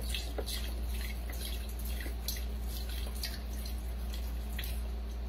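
Beef broth pouring from a carton into a slow cooker, with irregular splashing and dripping as the carton empties.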